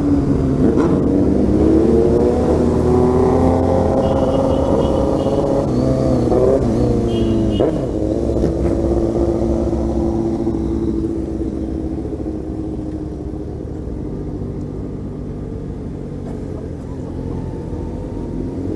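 Yamaha XJ6 motorcycle's inline-four engine running under way, its pitch falling and rising with the throttle and gear changes during the first several seconds. After about ten seconds it settles lower and quieter as the bike slows down.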